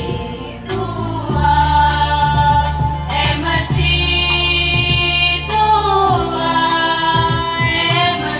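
A group of women singing together at microphones, with long held notes that glide between pitches, over a Casio electronic keyboard playing a steady sustained bass.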